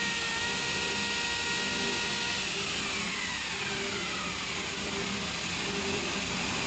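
Pneumatic torque wrench's air motor running with the switch held, a steady whine over a hiss; about two and a half seconds in the whine starts sliding down in pitch as the wrench loads up toward its set torque.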